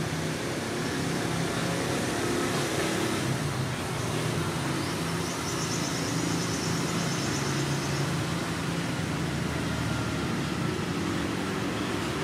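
Steady background vehicle traffic noise with a low, even hum.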